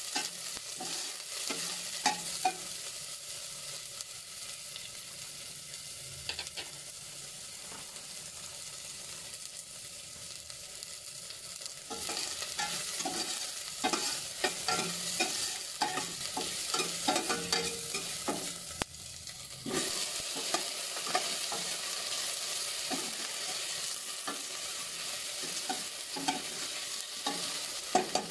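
Sliced onion and garlic sizzling in hot oil in a stainless steel pot, with a metal spoon stirring and clicking against the pot. The sizzle gets louder a little under halfway through.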